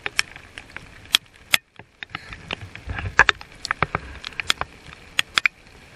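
Heavy raindrops striking the camera and boat in irregular sharp taps, several a second, over the steady noise of the boat under way.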